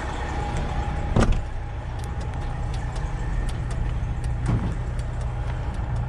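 Diesel engine of a 2012 Freightliner Cascadia idling steadily. A sharp knock comes about a second in and a duller thump about four and a half seconds in, from the cab door or the cab steps.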